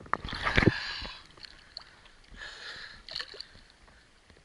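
Seawater splashing and sloshing around a camera held at the surface by a swimmer, in two bursts: a louder one in the first second with a few knocks, and a softer one about two seconds in.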